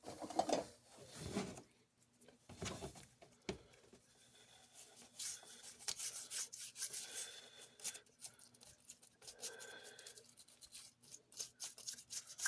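Irregular scraping and rubbing at the gunk-clogged gears of a Lionel F3 locomotive's motor truck as the gears are cleaned out, with scattered small clicks, thicker near the end.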